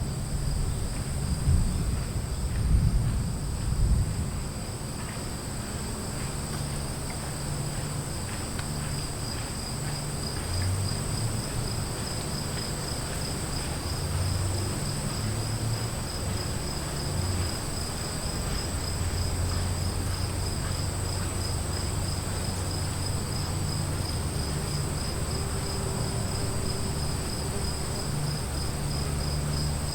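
Insects chirping steadily in two high, unbroken tones, one of them a fast pulsing trill, over a low rumble of a distant storm that swells briefly in the first few seconds.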